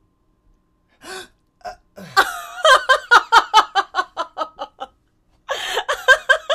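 A person's voice making a quick run of short, pitched vocal sounds, about five a second, from about two seconds in, fading out. A second short run comes near the end.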